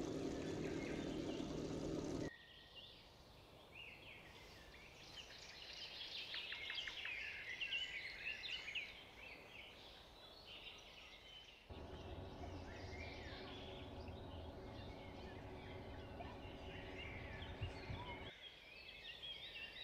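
Birds chirping and calling over faint background noise. The background changes abruptly a few times.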